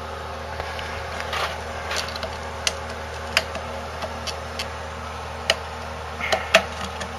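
Scattered small clicks and taps, irregular and a second or so apart, from handling a telephone cord with a freshly crimped modular plug, over a steady low hum.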